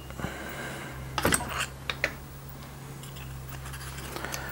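A few sharp metallic clicks and clinks in the first two seconds as the resistance spot welder's lever arm and copper electrodes are released from a cross-wire weld and the wire jig is taken out, over a low steady hum.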